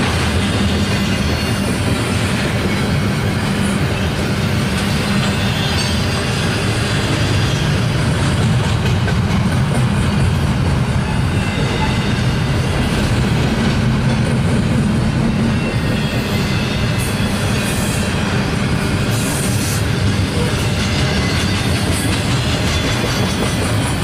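Double-stack intermodal freight train's well cars rolling past, a steady loud rumble of steel wheels on rail.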